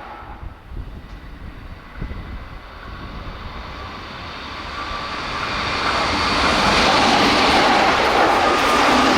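Keihan 10000 series electric train approaching and passing through the station at about 106 km/h without stopping. Its rushing noise swells from about four seconds in and stays loud to the end, with a steady whine on top.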